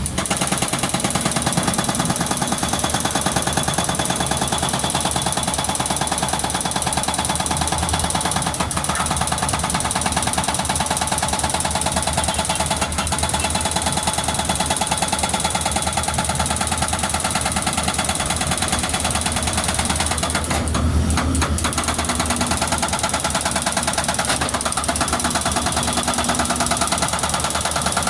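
Excavator-mounted hydraulic breaker hammering the concrete of a box culvert in a steady rapid stream of blows, over the running diesel engine, with a brief change in the hammering about three-quarters of the way through.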